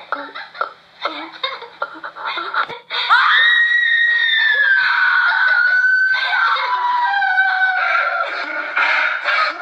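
A person's voice gives a few seconds of quick, choppy vocal sounds, then breaks into a loud, very high-pitched scream about three seconds in. The scream is held for roughly five seconds, sliding slowly down in pitch and dropping lower in steps toward the end.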